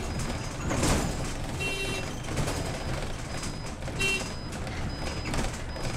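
City bus engine and road rumble heard from inside, with a short electronic beep repeating about every two seconds and a brief hiss about a second in.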